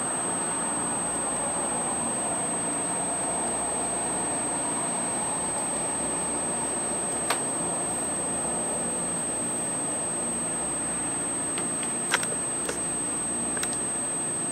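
Steady high-pitched electronic whine from a night-vision device, over a constant hiss, with a few faint clicks about seven seconds in and again near the end.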